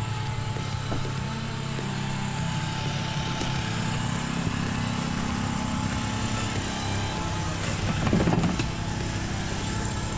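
A small engine running steadily at a constant speed, a low even hum, briefly louder about eight seconds in.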